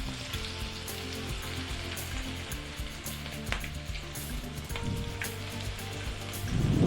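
Masala-coated okra slices deep-frying in hot oil, a steady sizzling hiss, with a brief louder low thump near the end.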